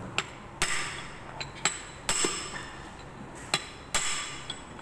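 Hammer blows on a punch set against the clutch centre nut of a Bajaj Pulsar engine, six sharp metallic strikes with a short ring, loosely in pairs. The nut is being driven loose without the special clutch spanner.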